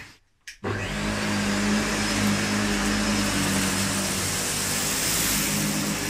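SEBO Felix upright vacuum cleaner running on full suction with its roller brush on over cut-pile carpet: a steady motor hum with an airy hiss. It starts about half a second in, after a moment of silence.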